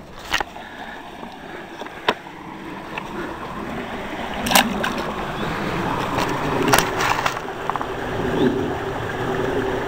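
Shallow trout stream running over rocks, getting louder about halfway through as the water is neared, with a few sharp knocks and rubbing from the hand-held camera being handled.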